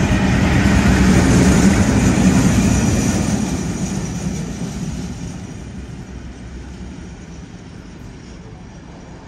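Colas Rail Freight Class 56 diesel locomotive passing through, its engine drone and rumble loudest in the first two or three seconds, then fading steadily as it heads away.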